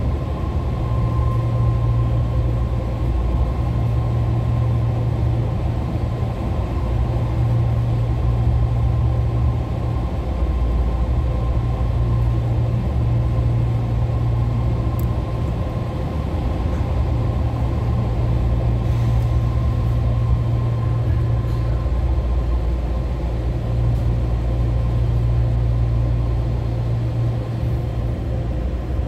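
Inside a BART legacy-fleet rail car: a steady low hum with a light rumble from the train's running equipment. A higher whine fades out in the first couple of seconds.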